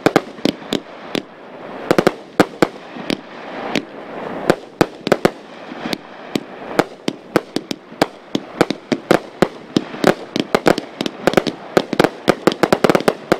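A 1500-gram, 72-shot finale cake of consumer fireworks firing: a rapid, irregular string of sharp shot reports over a steady crackle, quickening into a dense barrage near the end.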